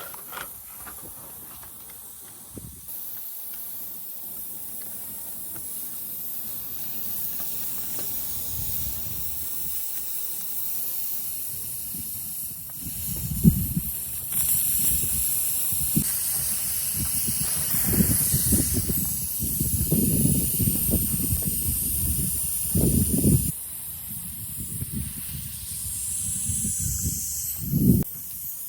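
A steady high hiss of air, with irregular low rumbles and knocks from about 13 seconds in until near the end.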